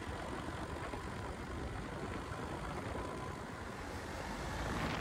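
Steady road noise of vehicles driving on a wet asphalt road, growing a little louder near the end.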